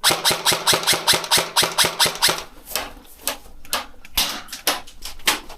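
Airsoft guns firing: a fast string of sharp clicking shots, about eight a second, for the first two seconds, then scattered single shots.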